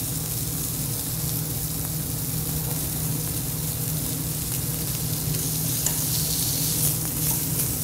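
Meat searing in a hot stainless steel sauté pan, a steady sizzle, over the steady hum of the range's vent hood fan.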